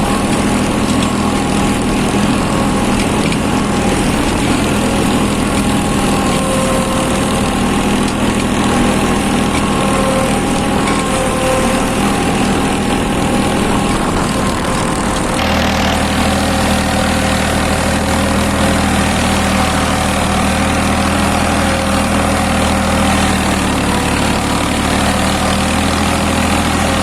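Farmtrac 6050 tractor's three-cylinder diesel engine running steadily under load at about 1500 rpm while pulling a three-bottom plough in first high gear. About halfway through, the engine note changes abruptly and becomes deeper and steadier.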